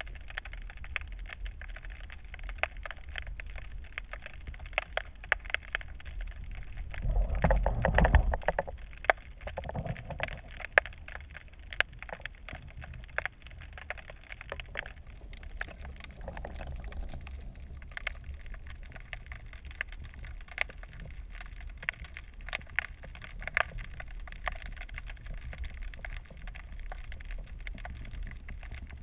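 Underwater sound picked up by a submerged camera: a steady low rumble with scattered sharp clicks and crackles throughout, and a louder rushing swell about seven to eight seconds in.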